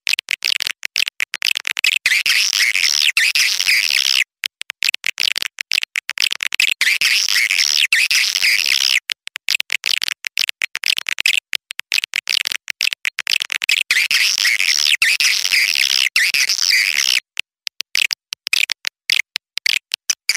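Calls of young swiftlets: a dense, high-pitched twittering chatter broken again and again by abrupt cuts to silence. This is a swiftlet lure sound of the kind played to draw swiftlets into a swiftlet house.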